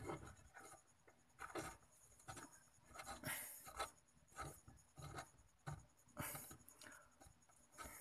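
Faint scraping and light metal clicks from a disc brake caliper being handled and fitted over the brake rotor on a Suzuki Multicab's front hub, in short bursts about once a second.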